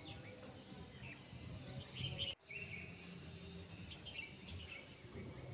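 Birds chirping in short repeated calls over a low steady background rumble; the sound drops out for a moment a little over two seconds in.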